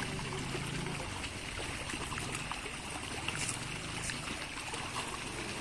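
Pond water splashing and trickling around people wading through an earthen fish pond and working a net. Small, scattered splashes sound over a steady wash of water.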